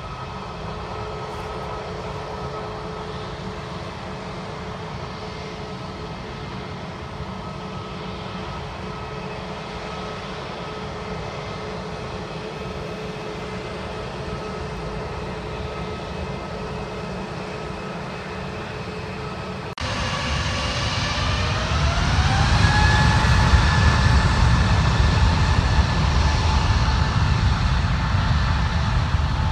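An Airbus A320neo's twin CFM LEAP-1A26 turbofans run steadily at idle, with a low rumble under several steady whine tones. About two-thirds of the way in the sound abruptly gets louder, and the engines spool up to takeoff thrust with a whine rising in pitch over a couple of seconds. They then hold a loud, steady rumble as the takeoff roll begins.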